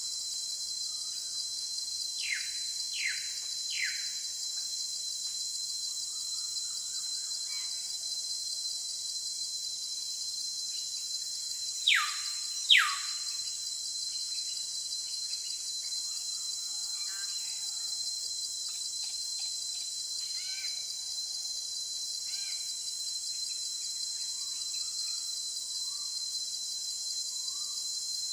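Steady high-pitched insect chorus, with bird calls over it: three falling whistles a few seconds in, two louder falling whistles about halfway through, and scattered faint chirps.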